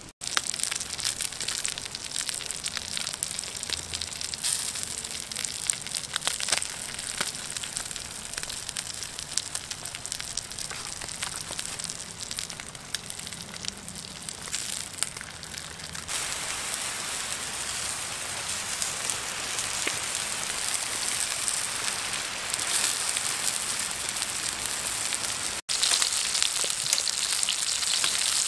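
Fish roe sizzling on a hot stone slab over a wood fire: a continuous frying hiss full of small pops and crackles from the food and the burning wood. The sound changes abruptly about halfway through and drops out for an instant near the end.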